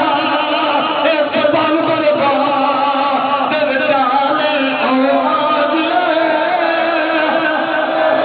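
Many men's voices chanting together in a mourning lament, overlapping and wavering without a break.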